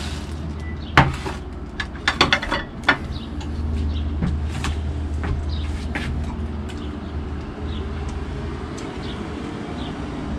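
A metal pan and dishes being set down and handled on a wooden table: a few sharp knocks and clatters in the first three seconds, then quieter handling. A steady low rumble runs underneath throughout.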